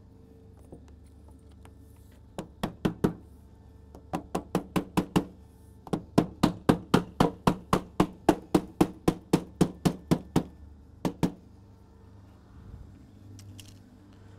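Glazing mallet knocking uPVC glazing beads into a door frame to clip them home: short runs of quick taps, the longest about four or five a second for some four seconds.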